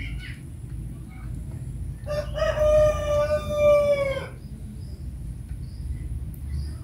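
A rooster crowing once: a single drawn-out call of about two seconds, starting about two seconds in and dropping slightly in pitch at its end.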